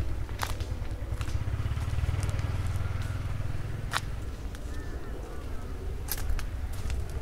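Outdoor ambience while walking: a steady low rumble that swells for a couple of seconds near the start, with a few sharp footstep ticks and faint bird chirps about five seconds in.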